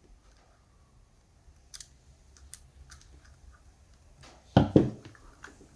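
Small sharp clicks from a mechanical keypad gate lock's code mechanism being reset, with every number cleared so the lock opens, and one louder knock just over four and a half seconds in.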